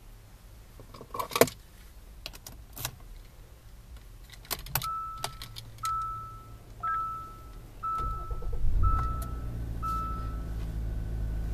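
Keys clicking and rattling in a Hyundai Santa Fe's cabin, then the car's warning chime sounding six single tones about a second apart. About eight seconds in, the engine starts with a brief surge and settles into a steady idle.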